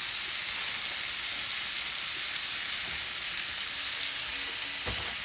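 Shrimp searing in a hot pan, a steady frying sizzle. A short knock comes near the end.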